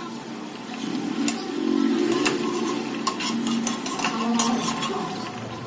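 Metal spatula stirring and scraping curry gravy in a metal kadai on the heat, with several sharp clinks of the spatula against the pan and a light sizzle.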